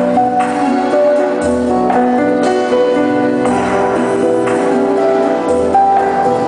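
Instrumental background music, with sustained chords changing about once a second.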